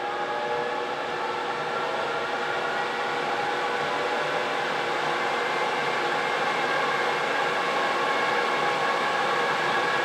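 Ninja Foodi Pro air fryer oven running in air fry mode while preheating to 450°F: a steady whir of its convection fan with a hum of several constant tones, growing slightly louder.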